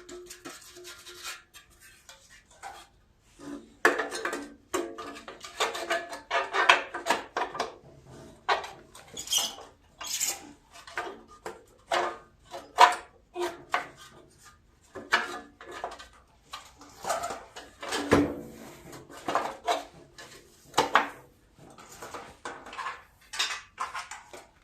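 Irregular metallic clanks and clinks, several a second, of a tractor's sheet-metal engine shroud and tools being handled as the shroud is fitted back on, starting a few seconds in.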